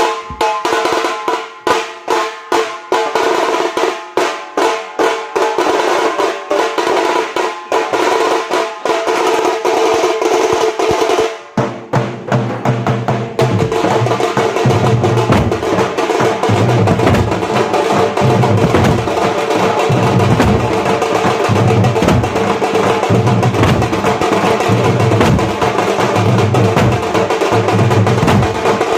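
Nasik dhol and tase (tasha) drums playing: first sharp, ringing tasha strokes in a steady beat, then about eleven seconds in the deep Nasik dhol joins and the drumming turns into a dense, driving rhythm.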